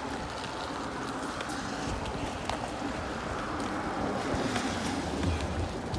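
Bicycle rolling over wet pavement and paving slabs: steady tyre noise and low rumble with wind on the microphone, scattered small clicks and knocks, growing a little louder toward the end.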